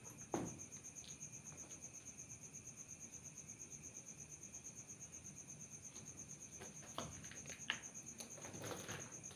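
Night insects, cricket-like, chirping in a steady, fast, even pulse at a high pitch. A few faint knocks and rustles come about half a second in and again in the last couple of seconds.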